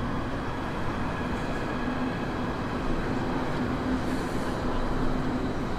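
Berlin U-Bahn train running across the Oberbaum Bridge: a steady rumble with a low, even hum.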